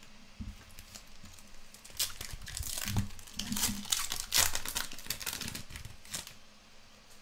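Foil wrapper of a Topps Finest soccer trading-card pack crinkling as it is handled and torn open. A run of crackly rustles starts about two seconds in, is loudest past the middle, and dies away about a second before the end.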